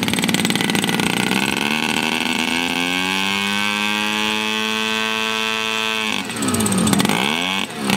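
Engine of a large-scale radio-controlled model biplane running on the ground. Its pitch climbs about two seconds in and then holds steady. Near the end the throttle is swung down and up several times.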